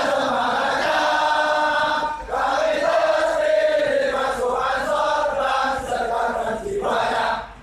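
A large group of men chanting a yel-yel, a group rally cheer, in unison to a sung melody in long held phrases. There is a short break about two seconds in and a pause just before the end.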